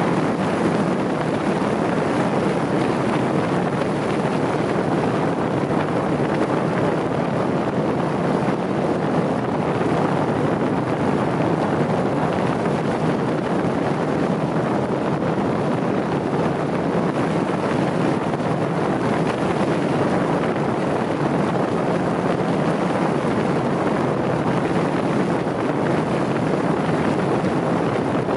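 Steady wind and road noise from a vehicle driving along a race track, with wind buffeting the microphone. It is an even rush with no clear engine note and no sudden events.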